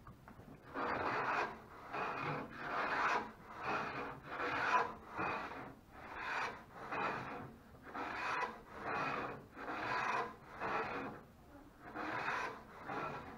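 Repeated strokes of a hand plane shaving the edge of a plywood deck piece, about two strokes a second with short pauses. The piece was cut slightly oversize, and it is being trimmed to fit.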